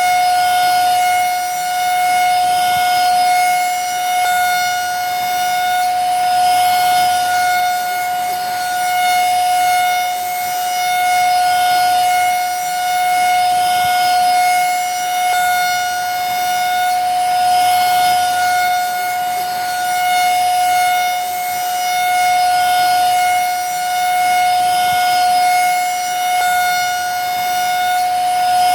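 Vacuum cleaner running steadily: a high, even motor whine over a rush of air, rising and falling slightly every couple of seconds.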